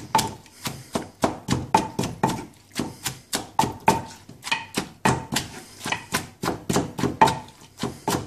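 Wooden pestle pounding shredded green papaya in a clay mortar: steady, sharp knocks about three a second, each with a short ring from the mortar. The papaya is being bruised so it releases its juice into the lime, sugar and fish-sauce dressing.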